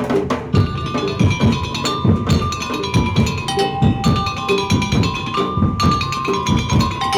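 Madurese daul (tong-tong) percussion ensemble playing: quick, even wooden knocks and drum beats under a held, stepping melody line.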